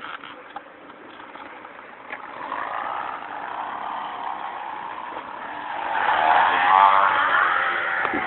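Flattened plastic bottle wedged at a bicycle's brake, its cap slapping against the knobbly tyre as the bike is ridden, making a motorbike-like buzz. It starts about two seconds in and grows louder with speed, rising in pitch and loudest near the end.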